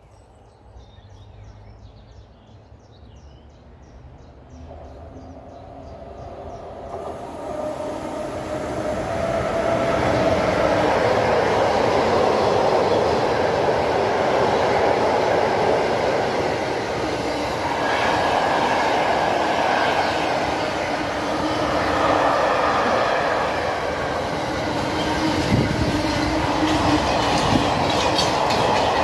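A freight train approaches and passes close by at speed. It grows from faint to loud over the first ten seconds, then its car-carrier and flat wagons keep up a steady rumble and clatter on the rails, with sharper wheel clicks near the end.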